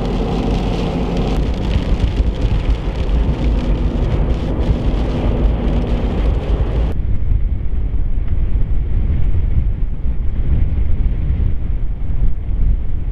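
Road and engine noise of a car driving on a slushy, sleet-covered highway. About seven seconds in this cuts to a heavy low rumble of strong wind buffeting the microphone, with the high hiss gone.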